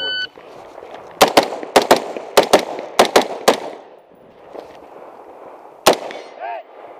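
An electronic shot timer beeps once, starting the string. Gunshots follow in quick pairs, nine in about two and a half seconds, and there is one more shot near the end.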